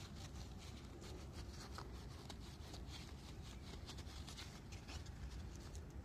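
Soft, irregular scratching and rubbing as dirt is cleaned off a small dug-up lead object, over a low rumble.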